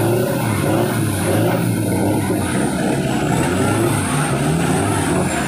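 Off-road pickup engines revving hard under load in deep mud, the revs rising and falling over and over as the trucks churn through the pit.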